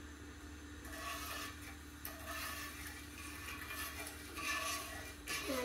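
Stainless steel spoon stirring sugar and water in a stainless steel frying pan: faint, uneven strokes of metal scraping and rubbing on metal.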